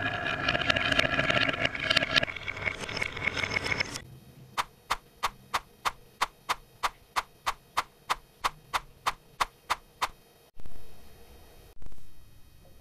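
Glass marbles rolling and rattling along a wooden marble run, then a steady series of sharp wooden clacks about three a second for six seconds. Two short rushes of rolling follow near the end.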